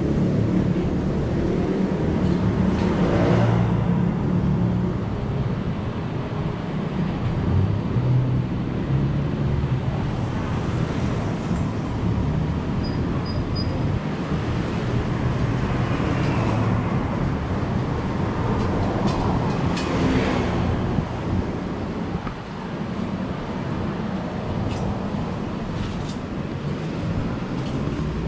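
Steady road traffic, with cars and buses passing and the rumble swelling a few times as vehicles go by.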